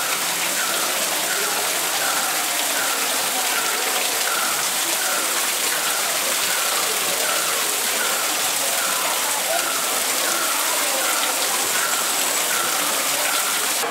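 Steady rush of falling water, with a short, slightly falling note repeated about once every 0.7 seconds over it.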